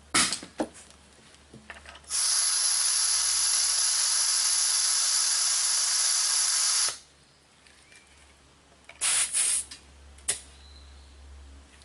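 Air hissing steadily out of a tire's valve stem for about five seconds as the pressure is let down from 44 toward 40 psi, then a couple of short hisses at the valve about two seconds later.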